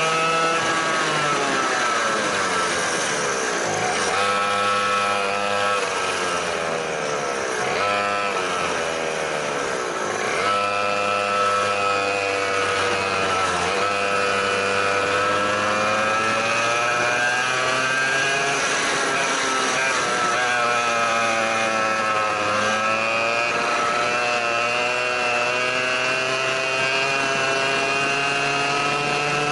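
A 100cc two-stroke kart engine heard onboard at racing speed. It revs high on the straights and drops sharply in pitch three times in the first ten seconds as the throttle is lifted for corners, then climbs again, with gentler dips through the later bends.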